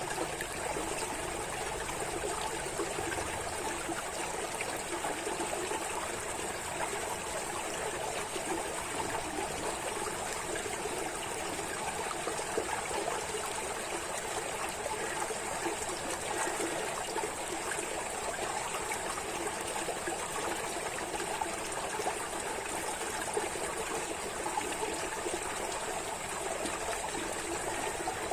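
Water running steadily in a continuous trickling stream, at an even level with no breaks or changes.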